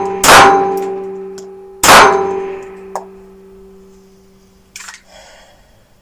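Two shots from an ISSC M22 .22 LR pistol with compensator, about a second and a half apart. Each shot leaves a metallic ringing that slowly dies away. A faint click follows, then light rustling and scraping near the end.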